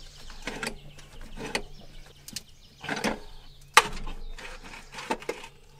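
Rust-seized water pump on a 1978 Datsun engine being forced back and forth with pliers. It gives irregular grinding, creaking clicks from rust binding inside the pump, with one sharp snap a little under four seconds in as it breaks free.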